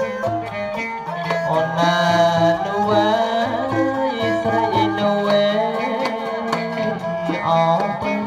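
Cambodian traditional ensemble music: a wavering melody over a stepping low line, with frequent drum and percussion strokes.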